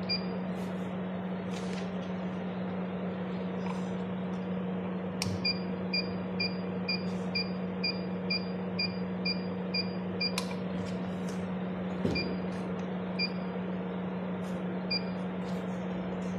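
A 980 nm diode laser machine running with a steady hum. About a third of the way in it starts a regular run of short high beeps, about two a second for some five seconds, then gives a few scattered single beeps.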